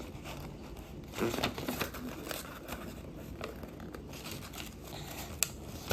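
Sheet of paper being handled and folded: soft crinkling and creasing rustles, with a louder rustle about a second in and a sharp tick near the end.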